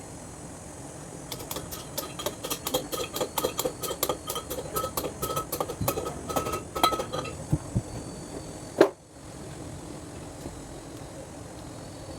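Fast, even metallic clicking or tapping, about four to five a second for some five seconds, from metal hand-tool work on an excavator during seal replacement. A single sharp knock comes near the end.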